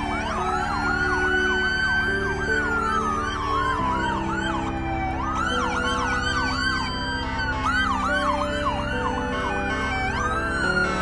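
Several emergency-vehicle sirens from a passing convoy of police and fire vehicles sound at once. A slow wail rises and falls while other sirens yelp in fast repeated sweeps, over a low steady drone.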